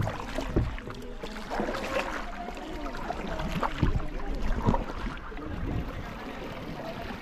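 Kayak being paddled: paddle strokes splashing in the water, with a few short knocks of the paddle against the kayak.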